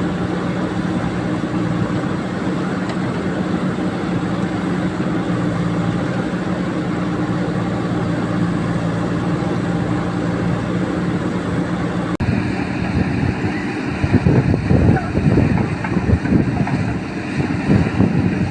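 Diesel engine of a JCB 3DX backhoe loader running steadily. After an abrupt cut about twelve seconds in, the sound becomes louder and uneven, with irregular surges.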